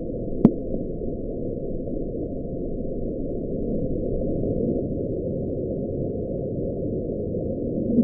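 Deep-ocean underwater ambience: a steady, muffled low rumble with no higher sounds, and a single sharp click about half a second in.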